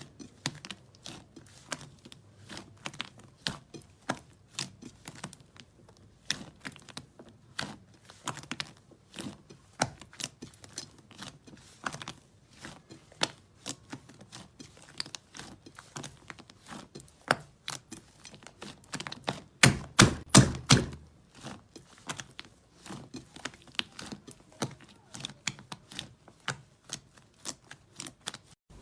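Slime being squeezed and poked by hand, giving irregular sticky clicks and pops, with a louder run of several pops about twenty seconds in.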